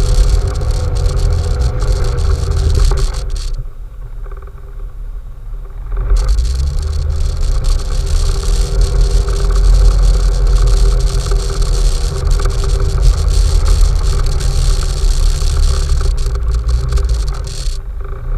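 Off-road vehicle engine running with a heavy low rumble. It eases off and goes quieter for a couple of seconds about four seconds in, then picks back up.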